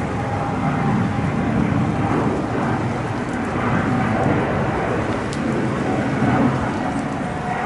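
Boeing 777 jet engines at takeoff power, a steady deep rumble with a faint whine above it.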